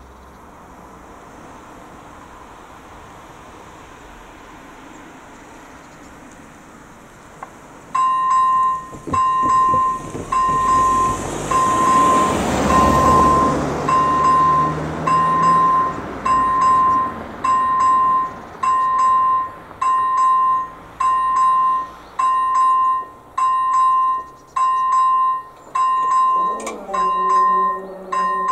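Level-crossing warning starts about eight seconds in: an AŽD ZV-01 electronic crossing bell sounding a repeating ding about once a second. A rush of noise swells and fades midway, and near the end the barrier drive hums as the booms begin to lower.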